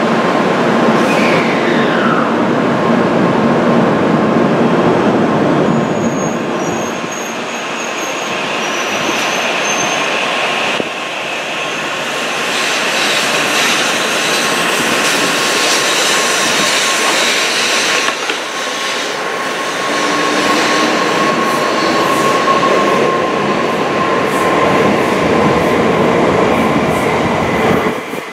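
Tokaido Shinkansen train moving slowly along the platform: wheel and rail noise with a steady whine and a falling whine early on. The sound drops off sharply near the end as the end car passes.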